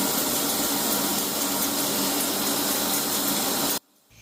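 Chicken pieces frying in hot oil in a karahi: a loud, steady sizzle with a low hum underneath. It cuts off suddenly near the end.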